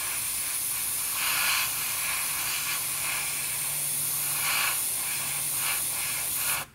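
Airbrush spraying acrylic primer in a steady hiss, the spray swelling several times as the trigger is worked, then cutting off suddenly near the end.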